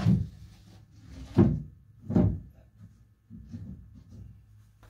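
A plywood panel being set into a wooden hearth-platform frame: three loud wooden thumps in the first two and a half seconds, then a run of lighter knocks as it is settled in place.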